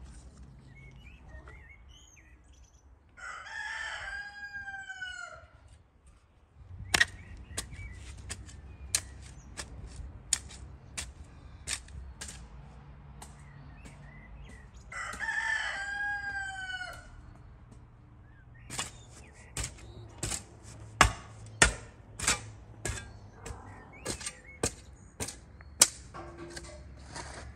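A rooster crows twice, about three seconds in and again about fifteen seconds in, each crow lasting about two seconds. Between and after the crows, a shovel strikes into garden soil in a string of sharp chops, thickest and loudest in the last third.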